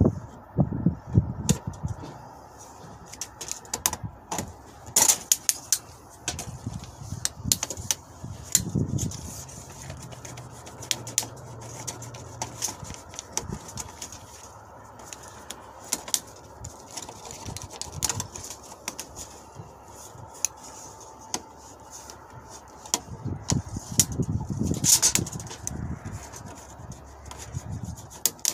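Steel tape measure blade being worked in the gap between a car door and its frame: an irregular run of small clicks and taps, with a few duller knocks.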